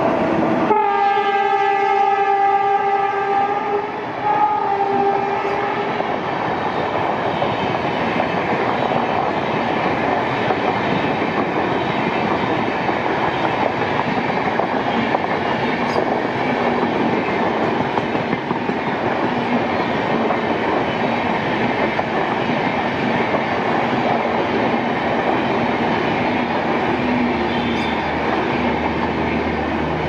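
A train horn sounds one long steady blast and then a shorter one in the first few seconds. The steady rushing rolling noise of a long air-conditioned passenger train's coaches passing follows.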